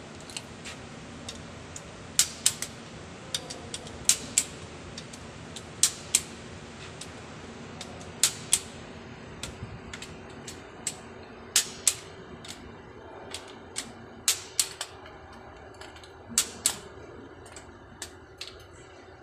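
Hand tool on a long socket extension working the bolts of a Pajero's transfer case from below: sharp metallic clicks, mostly two at a time a fraction of a second apart, about every two seconds.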